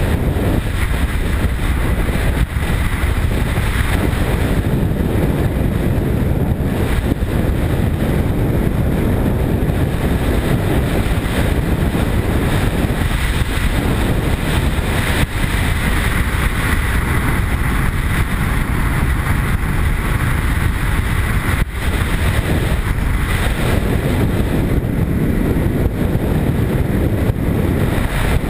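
BMW R1150 GS's boxer-twin engine running at steady cruising speed under rushing wind on the camera's microphone, a dense, steady noise.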